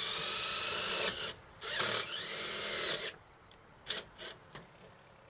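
Cordless drill driving screws through metal flashing into a wall. It runs for about a second and stops, then spins up again with a rising whine for about another second and a half and stops, followed by a couple of light clicks.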